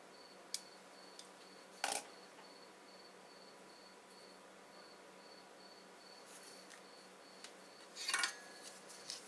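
A faint, high-pitched chirp repeats steadily about twice a second. Over it come a few sharp clicks and a clatter of small hard objects on a workbench: one about two seconds in, and a louder, longer one about eight seconds in.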